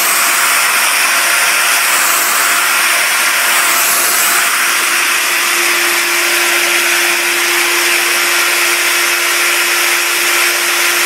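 Maktec electric plunge router running steadily at high speed, its bit routing across a wooden slab. A faint hum in the motor's sound shifts lower about halfway through.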